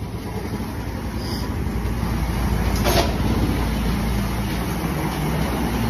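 Steady low mechanical rumble of a running engine or machine, with one sharp click about three seconds in.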